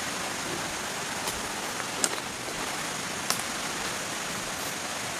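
Steady, even rushing background noise in the forest, with three short sharp clicks about one, two and three seconds in.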